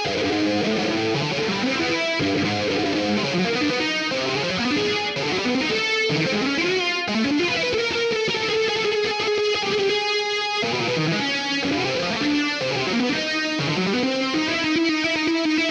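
Distorted electric guitar from GarageBand's Hard Rock guitar instrument, played as a lead line of bending, sliding notes, with a long held note about eight seconds in and another near the end.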